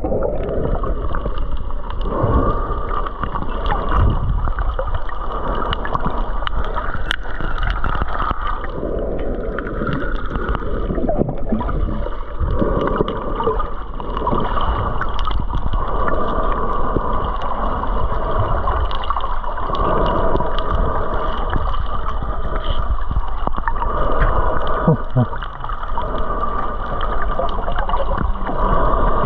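Muffled gurgling of water and bubbles, heard from a camera held underwater while snorkelling, over a steady low rumble.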